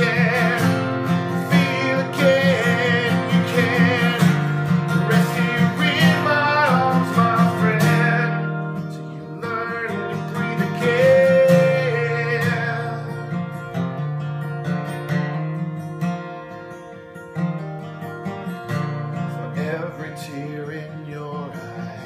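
A man singing to his own strummed acoustic guitar. The guitar keeps a steady strumming beat for about the first eight seconds, then plays slower, sustained chords as the music gradually quietens.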